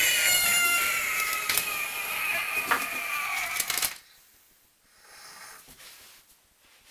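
A person's long, loud, high-pitched scream that slowly falls in pitch and cuts off suddenly about four seconds in, followed by faint breathing.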